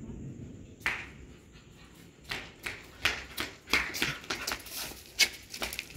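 An irregular run of sharp taps or slaps: a single one about a second in, then many in quick succession from about two seconds in.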